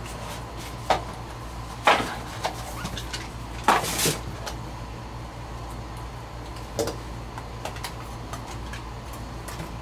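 Trading-card hobby box and clear plastic card holders being handled: the box lid coming open, then several sharp clicks and taps of plastic and cardboard, over a low steady hum.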